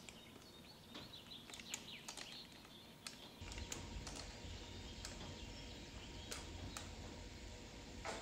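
Faint scraping and soft wet squelching of a spatula spreading thick chocolate cheesecake batter against the parchment lining of a cake pan. A low steady hum comes in about three and a half seconds in.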